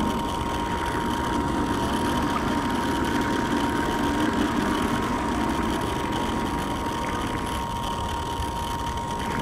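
Radio-controlled model boat engine running steadily.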